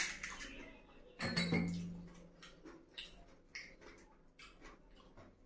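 A crisp, hollow pani puri shell cracked open with the fingertips, a sharp crack at the start, followed by soft ticks and crackles as the fried puri is handled and filled. A short low hum comes about a second in and fades.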